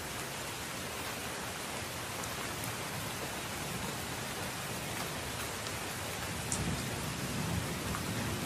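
Steady rain with a few scattered drop ticks, and a brief low rumble swelling about six and a half seconds in.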